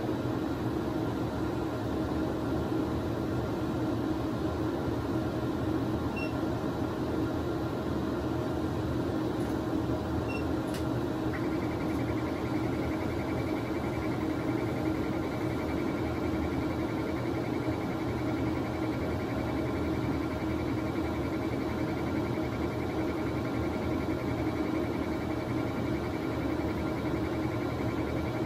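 Steady hum of CT scanner equipment and ventilation in the control room. About eleven seconds in there is a click, then a thin continuous high tone starts and holds while the CT scan runs and X-ray exposure is under way.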